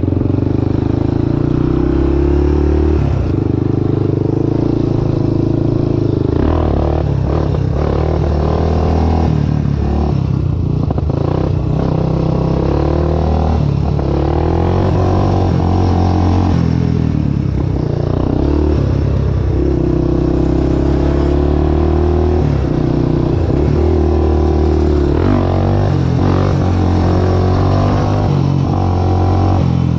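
A small off-road vehicle engine running loudly throughout, its pitch stepping up and down every few seconds.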